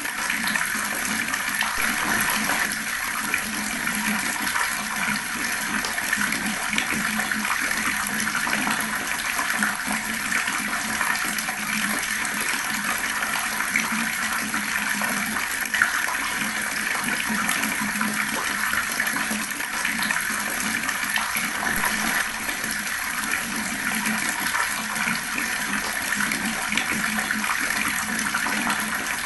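Fast-flowing water running in a steady, unbroken rush with continuous splashing.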